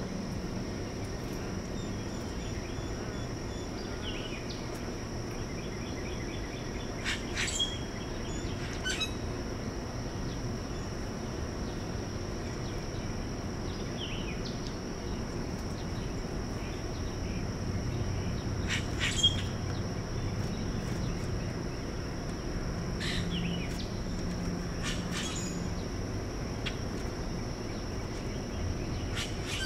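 Outdoor ambience: a steady high-pitched insect drone with short bird chirps scattered through it, several of them quick downward sweeps, the loudest at about 7, 9 and 19 seconds in.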